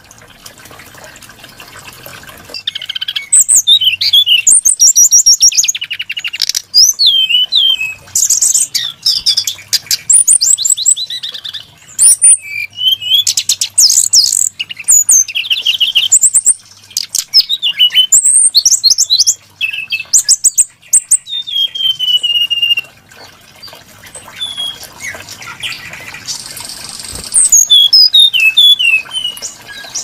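Brown-chested jungle flycatcher singing a long, varied run of high whistled phrases and rapid trills, with a short lull about three-quarters of the way through.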